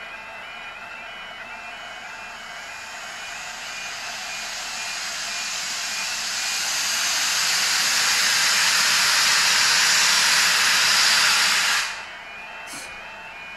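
Steam locomotive 60009 'Union of South Africa', an LNER A4 Pacific, letting off steam. The hiss swells over several seconds and cuts off sharply about twelve seconds in. Beneath it, a level crossing's two-tone warning alarm beeps steadily.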